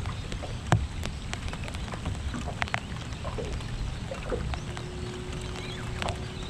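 Rain falling on an aluminium dinghy and the water around it, with many scattered sharp ticks of drops over a steady low rumble. A faint steady hum comes in about two-thirds of the way through.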